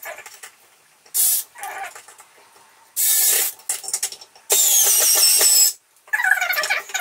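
Cordless screwdriver driving screws up into the underside of a vanity unit, in short bursts of about half a second and a second and a quarter with a high squeal. Near the end there is a wavering, voice-like whine.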